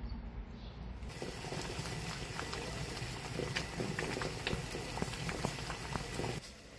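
Water boiling hard in a small pot with two eggs in it, bubbling and popping steadily. It starts about a second in, after a low outdoor hum, and cuts off near the end.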